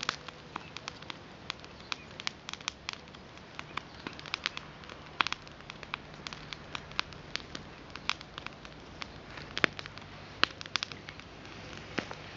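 Irregular crackling and sharp clicks, dozens of them, like dry twigs, leaves and wood chips being trodden or scratched, with two louder snaps a little before the end.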